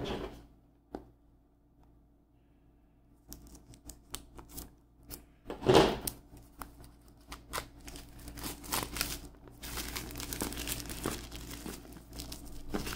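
Plastic shrink wrap on a phone box crinkling and tearing as it is cut and peeled off. Scattered crackles start a few seconds in, with a sharper burst about six seconds in, and then the crinkling runs almost continuously.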